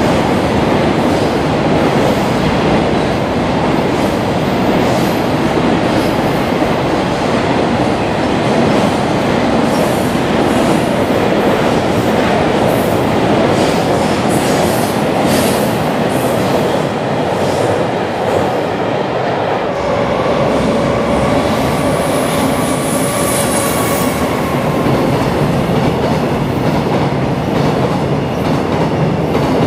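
Electric freight train of container wagons passing at close range: a steady rumble with the clatter of wheels over rail joints. About two-thirds of the way through, a faint steady whine joins the rumble.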